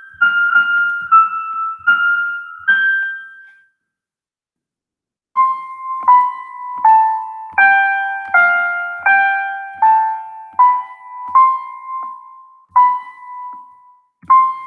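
Piano-sound keyboard instrument in the Soundtrap online music studio, played one note at a time as a slow practice melody. The notes stop for about a second and a half a few seconds in, then the tune resumes.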